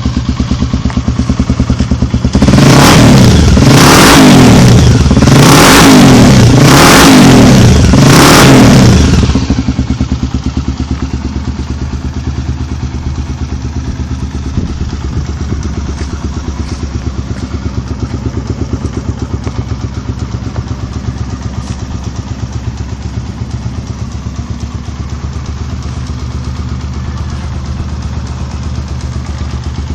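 Honda XR 250 Tornado's single-cylinder four-stroke engine idling with a steady beat, revved about five times in quick succession a few seconds in, then settling back to idle.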